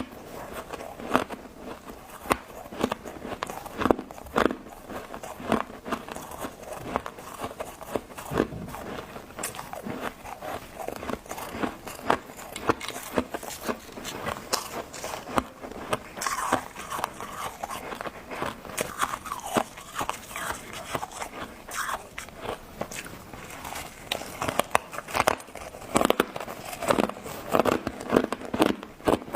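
Close-up crunching of freezer frost ice being bitten and chewed: a dense run of sharp crunches and crackles, with louder bites near the end.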